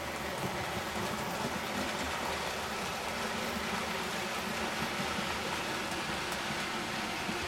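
OO gauge model train running past on the layout: a steady rumble of its wheels on the track.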